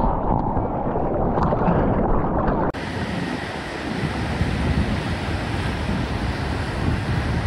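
Muffled rushing of turbulent water and bubbles around a GoPro held underwater in whitewater; a little under three seconds in it cuts to the steady noise of surf breaking on a reef, heard from the beach.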